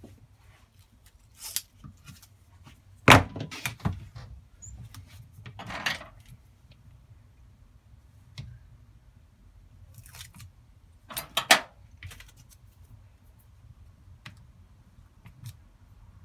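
Scattered knocks and clicks of an electric drill with a sanding-disc attachment and other tools being picked up and handled on a workbench, with a sharp knock about three seconds in and a cluster of loud clicks around eleven seconds. The drill motor is not running.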